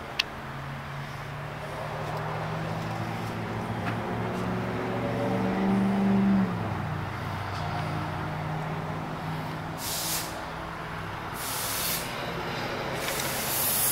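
A motor vehicle's engine runs, its pitch climbing and then dropping about six and a half seconds in. Three short hisses follow near the end.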